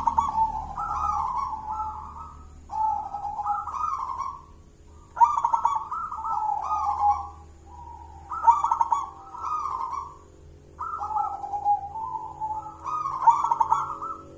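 Zebra dove (perkutut) cooing its song: six repeated phrases of soft, bouncing coo notes, each about two seconds long and coming about every two and a half seconds.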